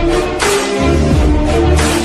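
Background music with a heavy bass line, sustained notes and a regular beat.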